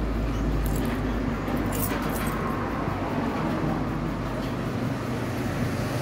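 Steady street traffic noise with a low rumble that weakens after the first couple of seconds, and a few light clicks early on.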